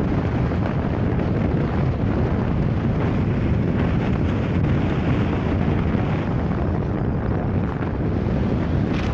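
Steady rush of wind and road noise from a car driving at highway speed, with wind buffeting the phone's microphone at the side window.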